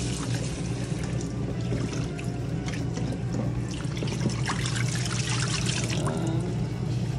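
Kitchen faucet running into a bowl of cut yam sticks as they are rinsed and swished by hand, water splashing and pouring in the sink, with small clicks of the pieces against the bowl.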